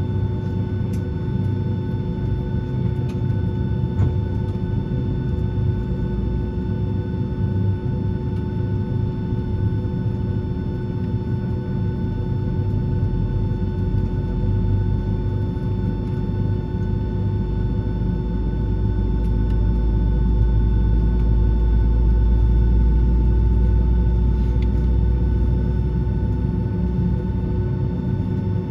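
Steady drone inside the cabin of a parked Boeing 757-200: several constant whining tones over a low rumble, the rumble growing louder about two-thirds of the way in.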